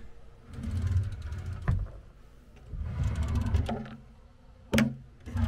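People moving about a room: low thuds and rustling, with two sharp knocks, one about two seconds in and one near the end.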